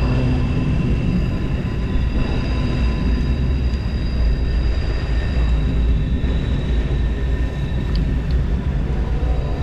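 Mountain stream water rushing past, a loud steady low rumble.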